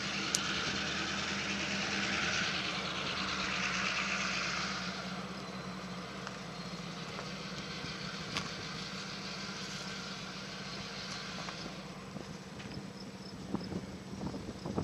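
Steady low engine hum under a broad rushing hiss; the hiss is strongest for the first five seconds and then eases, with a couple of faint clicks.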